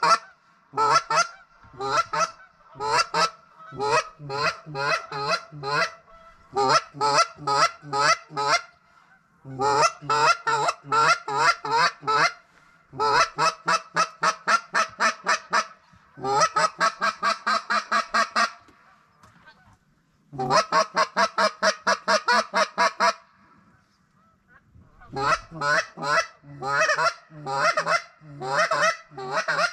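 Hand-held waterfowl call blown by a hunter to bring birds in. It sounds in runs of quick honking notes, about five a second, each run a second or three long with short pauses between.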